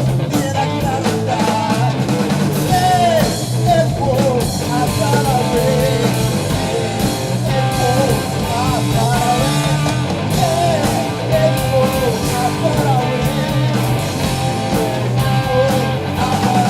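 A live rock band playing, a singer over guitar-driven accompaniment.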